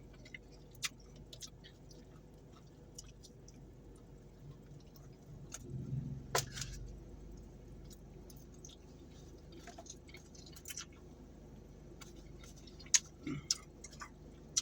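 Close-up mouth sounds of a person chewing a fatty piece of teriyaki chicken, quiet with scattered small wet clicks and a louder stretch about six seconds in; the fatty meat is hard to chew and tear apart.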